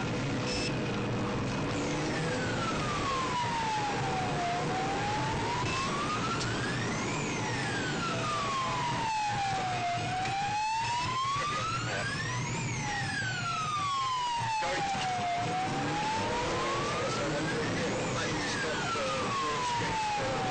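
Police car sirens on a slow wail, the pitch sliding down and back up about every five and a half seconds, with a second, fainter siren out of step with the first. A steady rumble of engine and road noise runs underneath as the car gathers speed.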